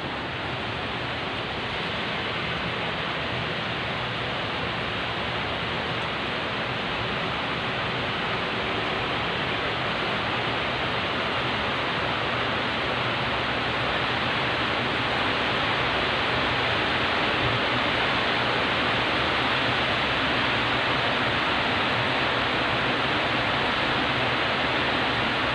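Heavy rain pouring down, a dense, steady hiss that grows gradually louder.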